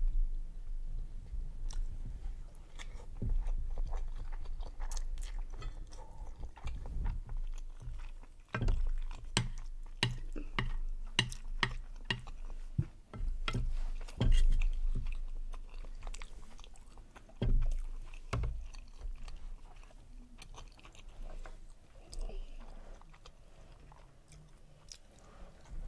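Close-miked chewing of chewy Korean rice cakes (tteokbokki) in a cheesy, spicy sauce, with many sharp wet mouth clicks at an irregular pace.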